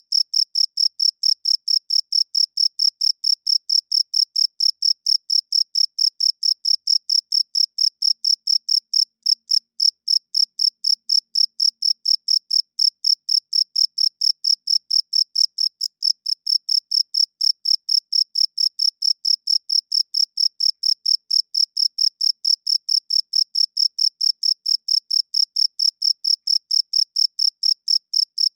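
Cricket chirping: the male rubs its wings together in a steady, even train of short, high chirps, about four a second, on one clear note.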